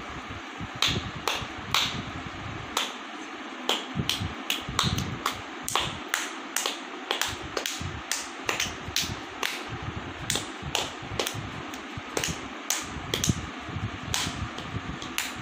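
Repeated sharp clicks at an irregular pace, about two or three a second, one of them louder near the end.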